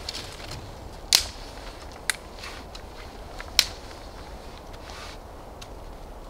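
Dry sticks being snapped by hand: three sharp cracks a second or so apart, the loudest about a second in and about three and a half seconds in, with lighter crackling of twigs between.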